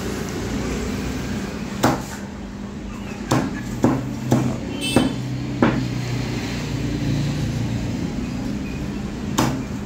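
Meat cleaver chopping raw chicken into small curry-cut pieces on a round wooden chopping block. There are seven sharp chops at irregular intervals, six packed into the first half and one more near the end.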